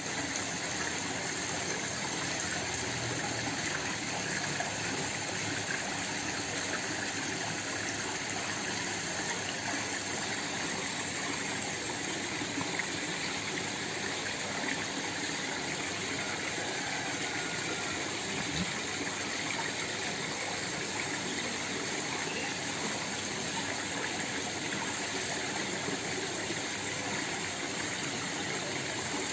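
Small waterfall splashing steadily, an even rush of water. Near the end a single brief, very high-pitched sound stands out above it.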